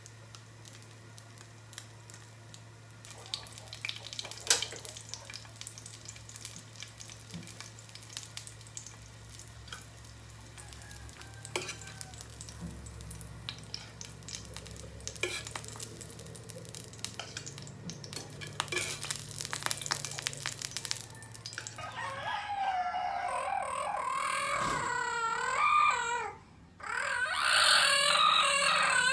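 Food frying in a pan, with scattered crackles and pops over a low hum. Near the end a rooster crows loudly, twice, in long wavering calls.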